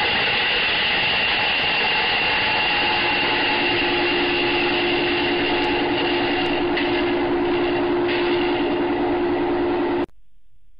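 A loud, steady mechanical rumble with high whining tones and no separate crashes. It cuts off abruptly about ten seconds in.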